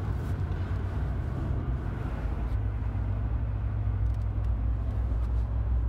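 Steady low rumble of engine and road noise inside a moving car's cabin, growing a little stronger about halfway through.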